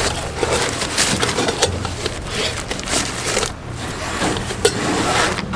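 Crinkling, rustling handling noise with many quick small clicks and knocks, from a titanium cook set being unpacked and handled on a camp table.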